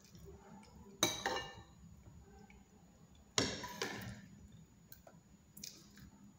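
A metal spoon clinking and scraping against a plate of rice: two sharp strikes, one about a second in and one a little past three seconds, each trailing off briefly, with a fainter one near the end.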